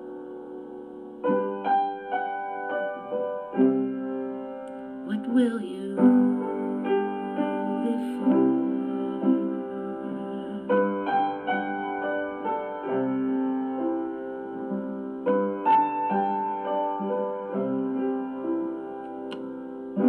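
Background music: a slow instrumental piano passage, with notes and chords struck every second or two and left to ring.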